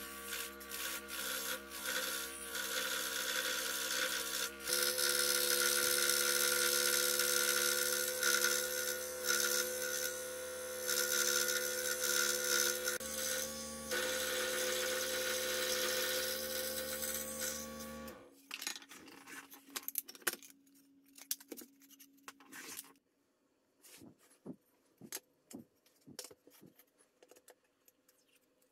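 Scroll saw running with a steady motor hum while its blade rasps through a 10 mm beech board, then switching off suddenly about two-thirds of the way through. After that come scattered light taps and rubs of wooden boards being handled.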